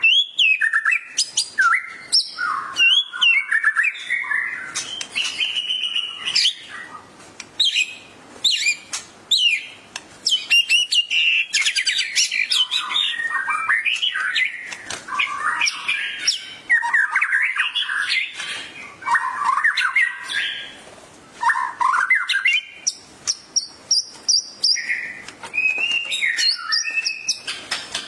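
White-rumped shama singing a continuous, varied song of rapid whistles, slurred chirps and sharp clicking notes, in the full 'gacor' song these birds give when stirred by a training recording.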